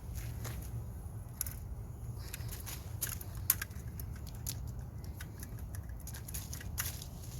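Potato plants being pulled up by hand: irregular rustling and crackling of the dying vines and soil, with a sharper snap about three and a half seconds in, over a low steady rumble.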